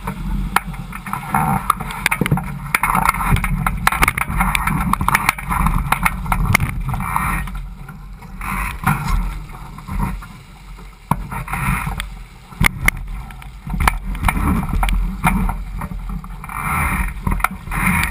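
Water rushing and splashing along the hull of a Laser 4000 sailing dinghy under way, rising and falling in waves, with a low rumble of wind on the microphone and scattered sharp slaps and knocks.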